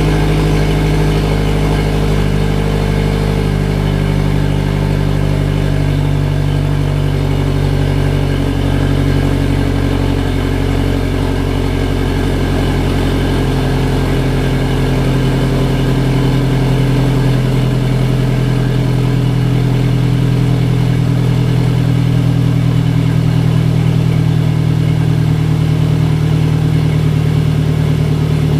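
Turbocharged engine with a Garrett GTX3071R turbo idling steadily; the idle shifts a little in the first half, then holds more even.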